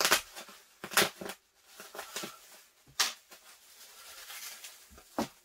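Small scissors snipping through packaging, heard as about five short sharp clicks spread over a few seconds, with faint rustling of the wrapping between them.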